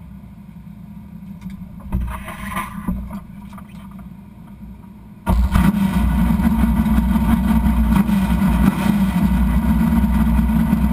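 Drag-race car's engine firing up abruptly about five seconds in, then running at a loud, steady idle. Before it fires there is only a low rumble and a few knocks.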